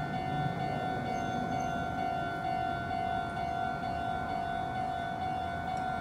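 Japanese railway level crossing's electronic warning bell ringing its repeating 'kan-kan' tone while the red lights flash and the barrier arms lower, the warning that a train is approaching.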